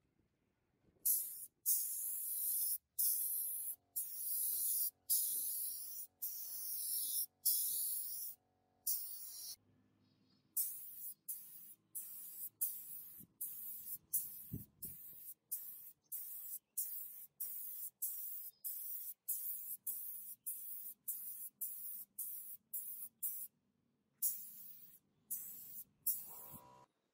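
Compressed-air paint spray gun with a suction-feed cup hissing as it sprays paint, cut on and off by the trigger. Bursts of about half a second to a second at first, then short quick bursts about two a second, with a short pause before the last few.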